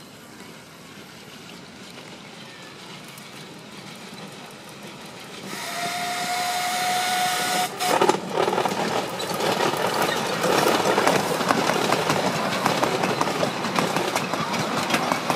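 A miniature railway train approaching and passing close by. About five and a half seconds in, the locomotive sounds one steady whistle lasting a little over two seconds; then the locomotive and its passenger cars go by loudly, wheels clattering and clicking on the track.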